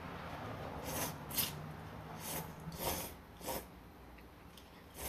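A person slurping instant ramen noodles: several short, noisy sucking slurps, one after another.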